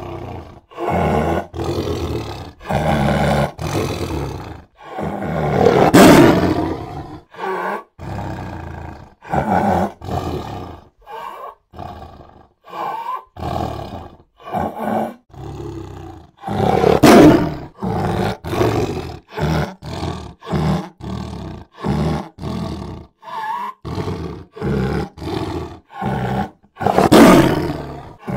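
Big cat roaring and growling in a string of short calls, each about a second long, broken by three longer, louder roars: one about six seconds in, one about midway and one near the end.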